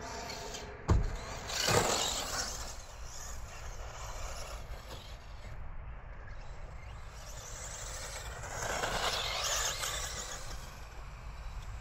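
1/8-scale electric RC buggies running on an astroturf track: a sharp knock about a second in, then motor whine and tyre noise swelling as a car passes near 2 s and again around 9 to 10 s.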